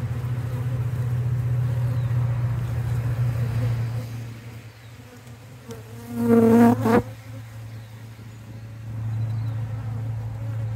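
Honeybees of a queenless nuc colony buzzing around the open hive, a steady low hum that fades a little in the middle and swells again near the end. About six seconds in a louder, higher-pitched buzz comes for under a second, ending in a sharp click.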